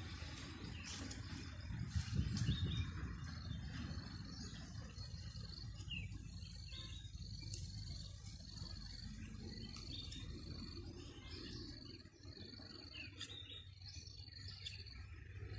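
Birds chirping in short repeated calls over an insect's steady high trill that stops and starts. A low rumble runs underneath and is loudest about two seconds in.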